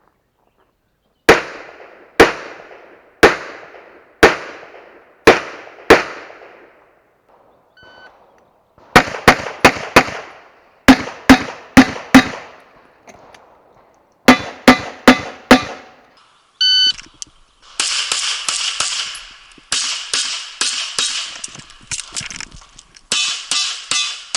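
Handgun gunfire: six single shots about a second apart, then three quick strings of four shots. Near the end a short electronic beep is followed by rapid, dense firing mixed with metallic ringing, typical of steel targets being hit.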